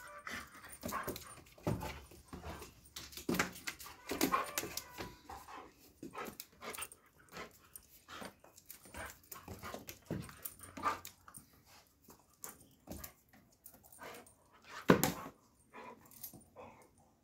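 Doberman moving about and whining in short high notes, among many irregular small clicks and knocks. One loud sharp sound stands out about fifteen seconds in.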